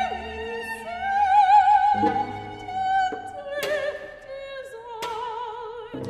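Soprano singing long, slow notes with wide vibrato, accompanied by two cellos in a contemporary classical art song. A few sharp accented string attacks cut in about three and a half and five seconds in.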